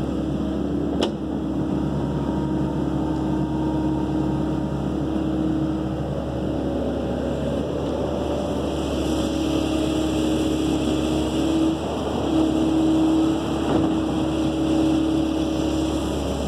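Kobelco SK135SR excavator's diesel engine running under working load as the boom, bucket and swing are operated, its note shifting up and down as the hydraulics take load. A single sharp knock about a second in.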